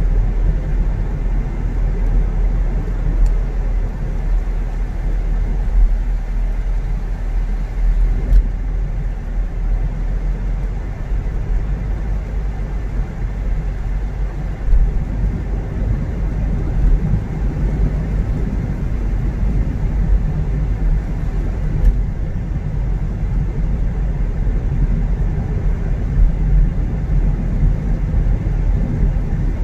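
Car on the move: a steady low rumble of engine and road noise.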